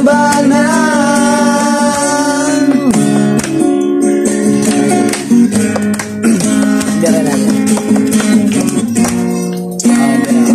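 Acoustic guitar strummed through a song, with a man's voice singing along in long held notes.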